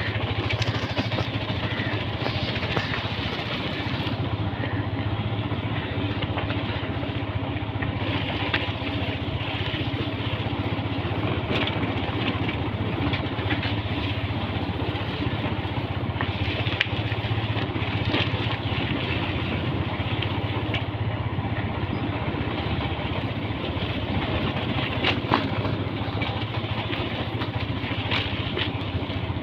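Motorcycle engine running steadily at low speed on a rough dirt and gravel lane, a constant low hum under road and ride noise, with a few sharp knocks now and then.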